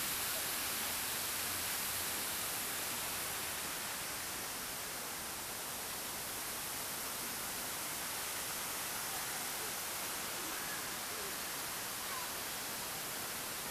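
Steady hiss of a plaza fountain's splashing water, easing slightly after a few seconds.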